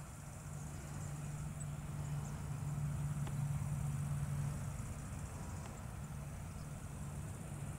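Low, steady engine hum of a passing vehicle. It grows louder around the middle and then eases off.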